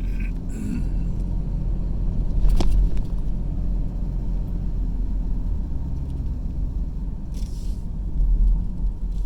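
Car road noise heard from inside the moving vehicle: a steady low rumble of engine and tyres, with one sharp click about two and a half seconds in and a short hiss near the end.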